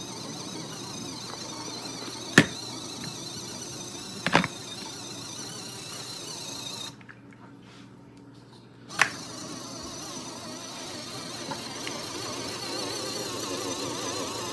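Small motor of a portable mini washing machine running as it agitates, a steady hum and whir. There are sharp clicks about two and a half and four and a half seconds in. The motor stops for about two seconds midway and starts again with a click.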